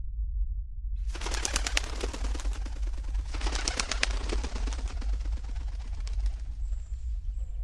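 Pigeons' wings clattering as they take off, in two bursts of rapid flapping about a second and three seconds in, thinning out near the end, over a steady low hum.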